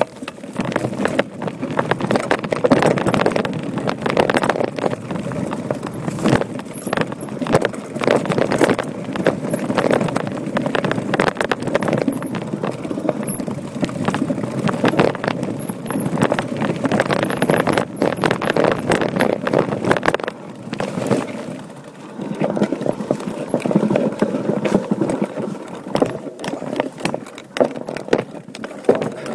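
Voodoo Bizango mountain bike ridden fast down a rocky trail: a continuous, dense rattle of tyres, frame and drivetrain knocking over stones, easing briefly about three quarters of the way through.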